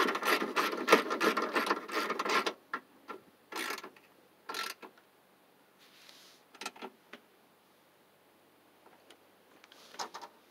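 Hand socket ratchet clicking rapidly as a bolt is run down, stopping about two and a half seconds in; after that, a few separate clicks and taps of tool and parts handling.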